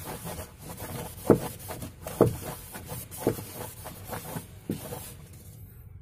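A cloth wiping a damp fridge box's inner wall dry around a screw hole: a steady rubbing hiss with a louder stroke about once a second, dying away shortly before the end.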